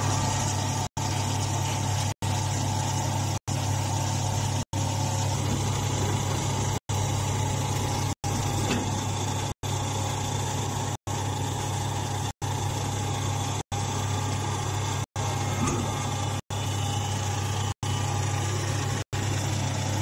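Silage baler's motor-driven hydraulic power unit running steadily, with a strong low hum and a fainter higher whine. The sound cuts out briefly at an even pace, about every one and a half seconds.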